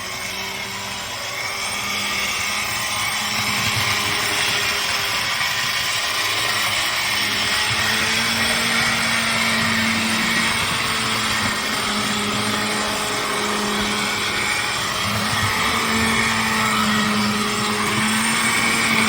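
Small electric motor and gears of an HO scale Bachmann Mavis model locomotive whining steadily as it runs along the track. The hum wavers slightly in pitch every few seconds.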